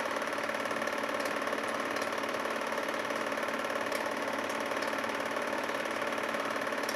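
Film projector running: a steady, even mechanical whir and clatter, with a few faint clicks.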